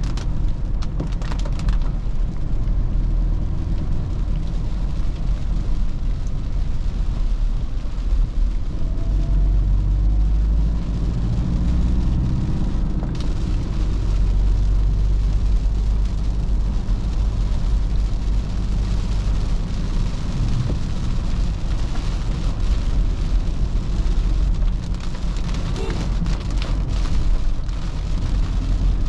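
2013 Toyota Fortuner's 3.0-litre D4D turbo-diesel four-cylinder running while the vehicle is driven, a heavy low rumble under a steady hiss of tyres and rain on a wet road. The engine note climbs for a few seconds about ten seconds in.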